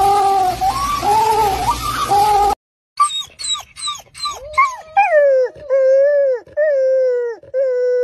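Penguins calling over the noise of a colony, cut off about two and a half seconds in. After a brief gap, a canine yips rapidly, then gives four or five short whining howls, each sliding down in pitch at the end.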